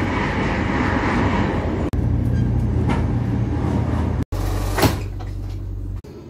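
Passenger train running, heard from inside the carriage: a steady low rumble and rush of wheels on the track, with a train passing close alongside at the start. The sound cuts abruptly twice and turns quieter near the end.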